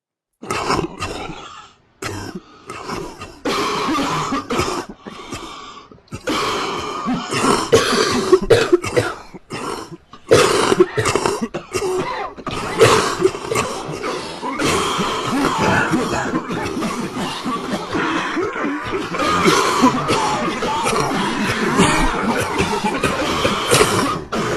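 Many people coughing over one another in short, overlapping fits. The coughing runs almost without a break after about ten seconds.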